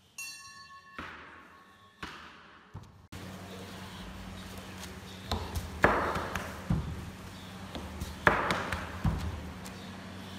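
A run of heavy thumps on a table, four or five strong blows with some lighter knocks between, as the medium works over the talisman papers. A brief ringing tone sounds at the very start.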